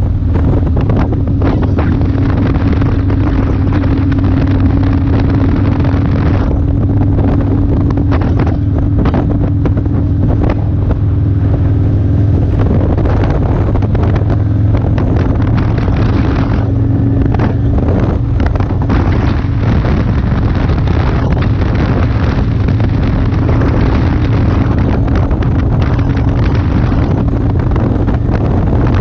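Motorcycle engine running steadily at cruising speed, with heavy wind buffeting the camera's microphone.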